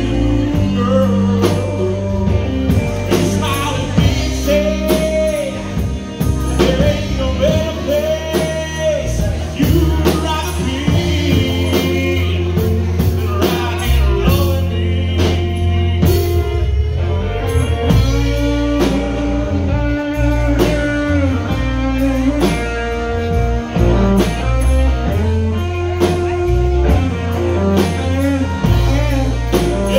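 Live band playing: a man singing over electric guitar, bass guitar, fiddle and a drum kit.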